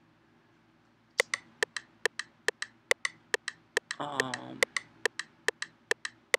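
Electronic percussion from a music setup: a sharp, woody click repeating about four to five times a second, starting about a second in. A short burst of voice comes about four seconds in.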